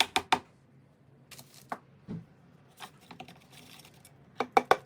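Scattered light clicks and knocks of small hand plane parts being handled and set down, with a quick run of clicks near the end.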